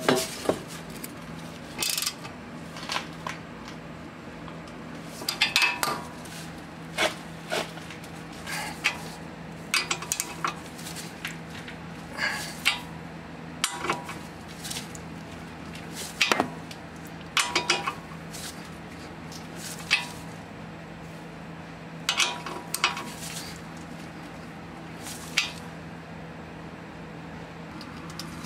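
Scattered sharp metallic clinks and short clicking runs of a ratchet and 17 mm socket on a tie rod end's castle nut, as the nut is snugged down, over a low steady hum.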